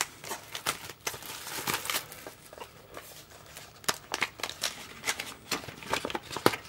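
Scattered light clicks and soft plastic rustling as a Blu-ray steelbook case and its clear plastic wrapping are handled.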